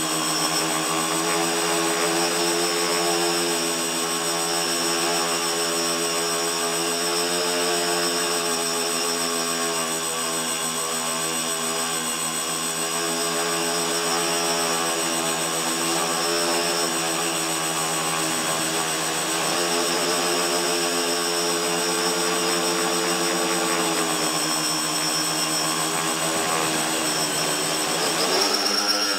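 Tricopter's brushless electric motors and propellers whining in flight, heard close from the onboard camera, the pitch wavering up and down. Near the end the pitch drops and then rises sharply.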